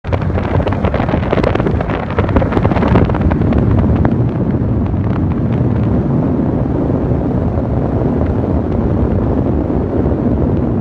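Steady low rumbling noise with wind buffeting the microphone, and a scatter of faint sharp cracks through the first half, a strange sound likened to shots.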